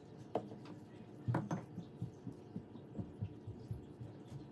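Soft taps and low thumps of kitchen handling: a plastic measuring spoon tapping as dry seasoning is spooned from small bowls onto raw chicken in a stainless steel bowl, with the sharpest taps near the start and around a second and a half in.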